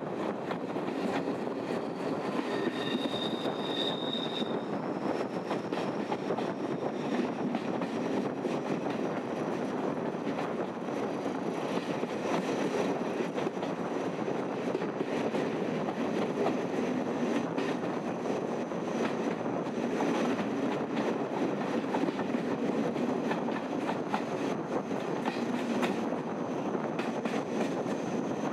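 Diesel-hauled passenger train running, heard from a carriage window: a steady rumble of wheels on rail with clicks over the rail joints, and a brief high wheel squeal on the curve about three seconds in. A faint high whine slowly rises in pitch throughout.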